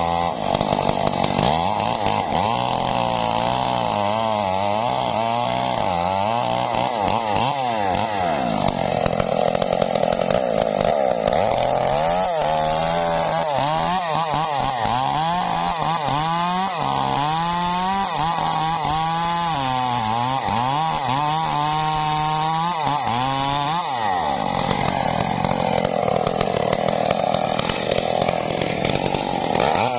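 Stihl MS 381 two-stroke chainsaw cutting through a waru tree trunk at full throttle. The engine pitch keeps sagging as the chain digs into the wood and climbing again as it frees up.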